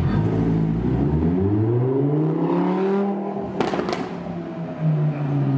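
Lamborghini Huracán's 5.2-litre V10 revving up hard as the car pulls away, its note climbing for a couple of seconds. A few sharp exhaust pops follow about three and a half seconds in, and then the engine note drops.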